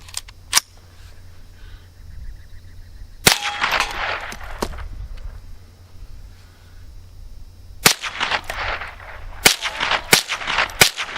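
Rifle gunshots, about seven at irregular intervals, each sharp crack trailing off in an echo.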